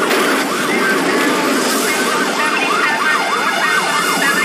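Police car siren in a fast yelp, its pitch rising and falling about four times a second, over engine and road noise from the pursuing patrol car.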